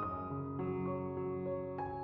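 Soft background music: a slow melody of held notes, a new note about every half second and a fuller chord struck near the end.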